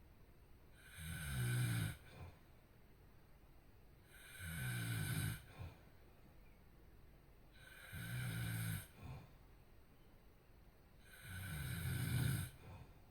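A sleeper snoring: four loud, rasping snores, about one every three and a half seconds, each a low buzz of about a second with a hiss over it, and a short catch just after most of them.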